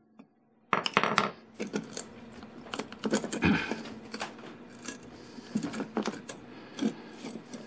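Irregular metal handling clicks and light rattles as a wire rope and its ferrule are repositioned by hand in a pivoting-jaw vise grip, over a faint steady hum. The clicks begin after a brief silence at the start.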